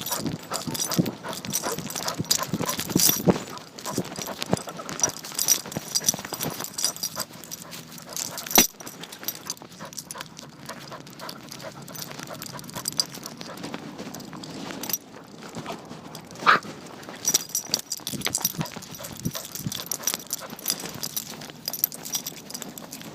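A dog moving about, heard from a phone strapped to its harness: irregular rubbing and knocking against the microphone, with a sharp knock about eight and a half seconds in.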